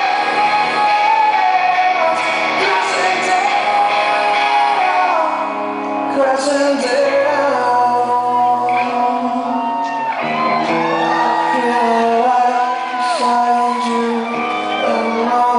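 Live rock music: a male lead singer sings over electric guitar and the band, amplified in a large hall.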